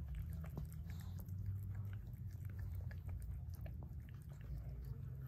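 A toy poodle licking during whelping: quick wet smacking clicks over a steady low rumble.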